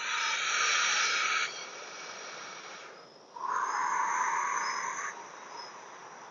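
Insects buzzing: a loud high buzz for about a second and a half that fades away by three seconds, then a lower buzz from about three and a half to five seconds, over faint repeated chirps of crickets.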